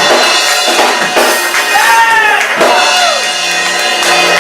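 Gospel music playing with a drum kit and a melodic line that bends in pitch.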